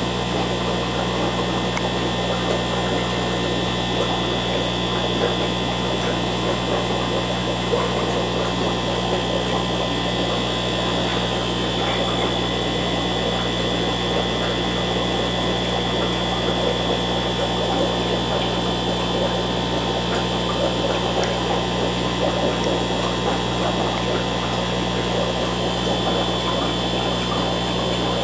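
Steady electrical hum of running aquarium equipment, with a constant high whine over a hiss, unchanging throughout.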